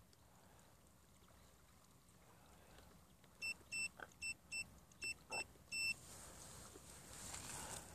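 Bait boat electronics giving a quick run of about eight short, high electronic beeps over two and a half seconds, with a faint hiss swelling afterwards.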